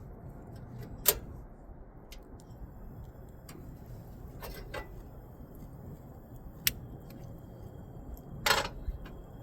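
Scattered clinks and clicks of cooking gear being handled, the loudest about a second in and again near the end, over a steady low background rush.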